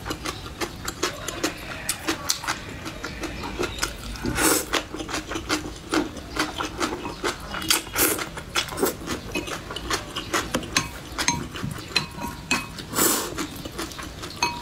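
Close-up eating sounds of noodles in chili-oil broth: wet chewing and mouth noises, chopsticks clicking against the bowl, and three longer slurps of noodles about four and a half, eight and thirteen seconds in.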